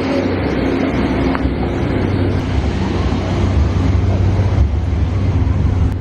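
Deep, steady engine rumble of a large motor vehicle running close by, over street traffic noise.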